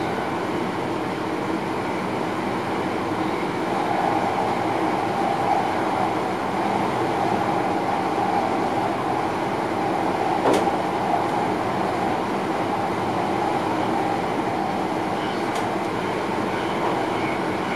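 Passenger train running along the track, heard from inside the driver's cab: a steady running noise with a hum in it, and two short sharp clicks about ten and fifteen seconds in.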